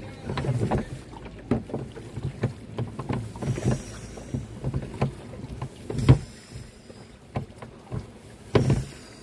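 Irregular knocks and bumps of a paddle and canoe in the water, with a few louder thumps about six and eight and a half seconds in.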